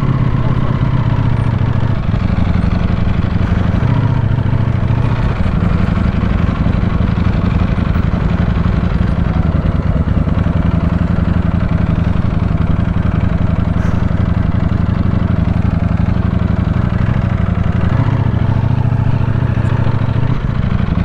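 Ducati Panigale V4S's V4 engine running steadily at low revs, without revving.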